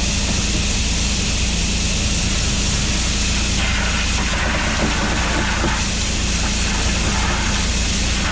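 Ice pump running extremely loud: a steady mechanical drone with a low hum under a rushing hiss. The hiss swells for a couple of seconds about halfway through.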